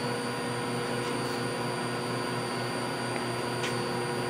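1985 Bridgeport R2E3 (Boss 8) CNC milling machine standing powered up at idle: a steady hum and whir with several fixed tones, and a couple of faint ticks.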